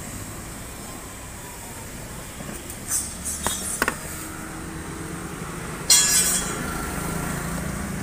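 Handling knocks and clinks from the detached plastic wheel of a child's ride-on motorbike being moved and set down on paving: a few short knocks about three to four seconds in, then a sharp clink with a brief ringing about six seconds in, over a steady hum of traffic.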